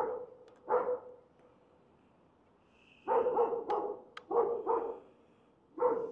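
A dog barking: two single barks, then a quick run of barks about three seconds in, two more, and another pair near the end.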